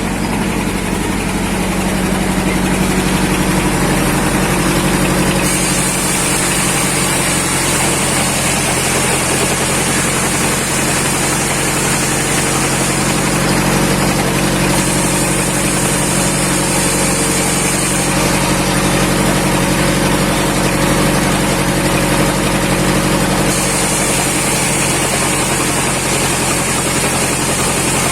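Bandsaw running and ripping a log of waru wood: a steady machine hum, with a high hiss that comes in for long stretches about five seconds in, again around the middle, and again near the end.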